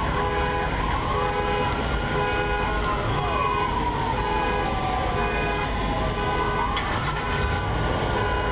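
Emergency vehicle siren wailing, rising and falling in slow sweeps, over a horn-like tone that pulses on and off about twice a second.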